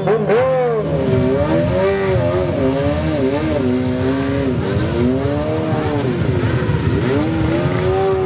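Sport motorcycle engine revving up and down again and again, its pitch rising and falling every second or so as the rider works the throttle through a wheelie.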